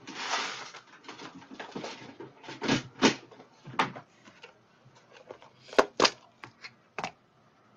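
Clicks, taps and a brief rustle from handling jewelry-making supplies: beads, jewelry pliers and a plastic compartment organizer box. The rustle comes in the first second, then scattered sharp clicks, with the loudest pair a little before the end.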